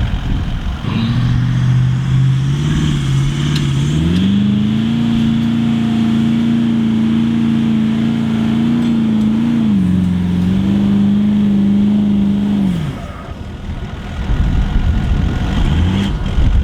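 A four-wheel drive's engine working hard in soft sand: the revs climb about four seconds in, hold high for several seconds with a brief dip, then fall away near the end.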